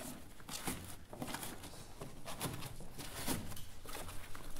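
Cardboard packaging being handled: irregular rustles, scrapes and light knocks.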